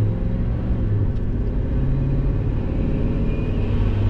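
Turbocharged 2003 Ford F-150's engine running with a steady low drone as the truck drives, heard from inside the cab.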